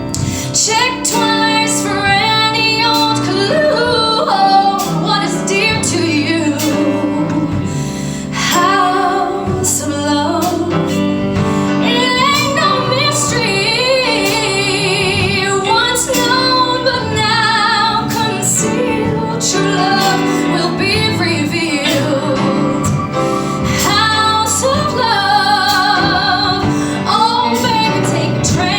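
A woman singing a contemporary Broadway-style pop song live, holding notes with vibrato, over instrumental accompaniment.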